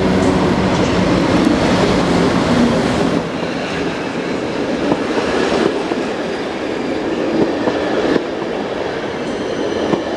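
PKP Intercity EP09 electric locomotive and its passenger coaches pulling out of the station close past the listener. A steady hum from the locomotive dies away about three seconds in, leaving the rumble of the coaches' wheels on the rails with a few sharp clicks over rail joints.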